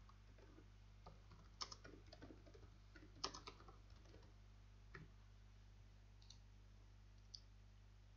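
Faint computer keyboard typing: a quick run of keystrokes over the first five seconds or so, then two single clicks near the end.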